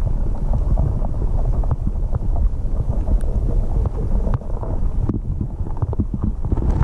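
Steady low water rumble heard through an underwater camera's housing, with many small clicks and taps scattered through it.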